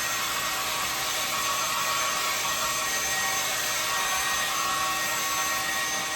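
ANIEKIN 1875-watt hair dryer running steadily: a constant rush of blown air with a steady motor whine.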